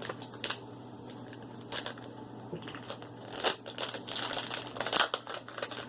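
Toy packaging crinkling and crackling as it is handled and opened, in irregular bursts that grow busier in the second half.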